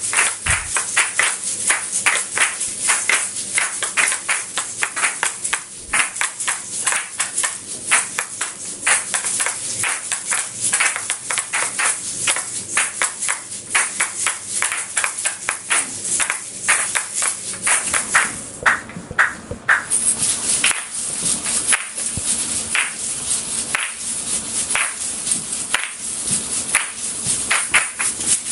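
Several asalato (kashaka) played together: the paired seed-filled shells on each cord rattle and clack against each other in a fast, dense, even rhythm. The highest part of the sound briefly drops out about two-thirds of the way through.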